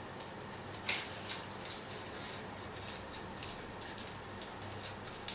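Faint crinkling and ticking as a freshly baked muffin is worked out of its case by hand, with one sharp click about a second in.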